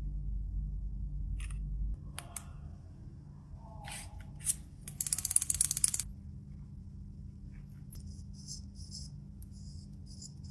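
Hands handling a phone's box and packaging: a few scattered clicks and taps, then a rapid rasping rustle for about a second midway, the loudest part, followed by light high ticks near the end. A low steady hum underlies the first two seconds.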